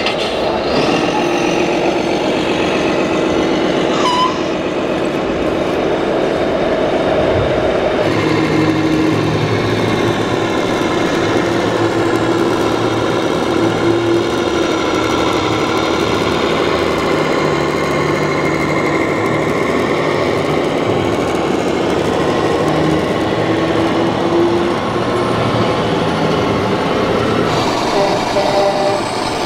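Scale RC model trucks running, their electronic sound modules playing steady diesel truck engine sounds through small loudspeakers. Hall chatter sits under them, and the engine sound changes character about eight seconds in and again near the end.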